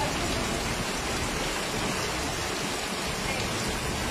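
Heavy rain falling steadily, an even dense hiss, over a flooded street with floodwater running through it.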